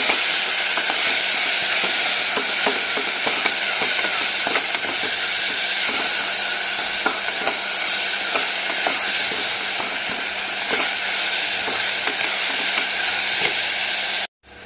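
Onion, tomato and ginger-garlic paste sizzling in hot oil in a pan while being stirred, with frequent sharp clicks of the stirring utensil against the pan. The sizzle cuts off abruptly just before the end.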